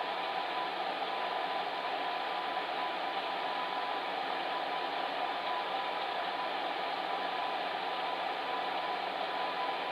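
Fan heater running steadily: an even rush of blown air with a faint high-pitched hum held constant through it.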